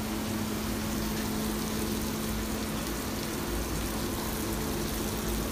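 Steady hiss of a commercial gas burner under a wok of simmering chana dal gravy, with a constant low hum throughout.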